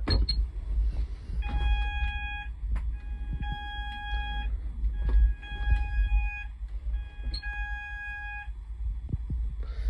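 Addressable fire alarm sounding its pulsed alert signal: one steady tone, about a second on and a second off, four times. This intermittent pattern is the alert stage, not the continuous evacuate tone.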